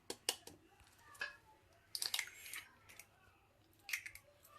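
Eggs being broken against a bowl and emptied in: a few short, sharp cracks and taps with soft wet squishing between them.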